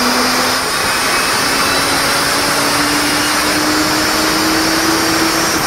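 A motor vehicle running under a steady loud rush of noise, its engine note dipping out briefly near the start and then rising slowly in pitch.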